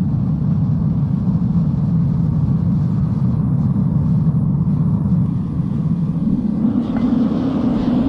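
Foundry furnace burner firing steadily, a loud, even rumble as the flame heats the furnace's ceramic-blanket lining.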